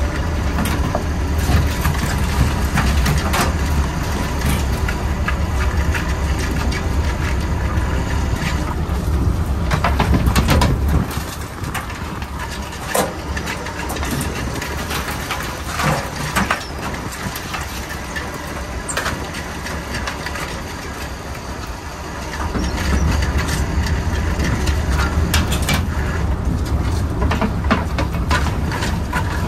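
A crab workboat's engine running with a steady low rumble that eases off for about ten seconds midway and then comes back. Over it, wire crab pots clank and rattle now and then as they are hauled over the rail, shaken out and handled on deck.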